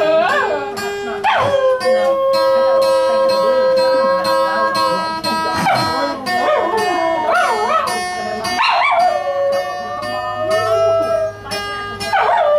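Small dog howling along to a strummed acoustic guitar: four howls, each sliding sharply up and then holding a long, wavering note, over steady strumming.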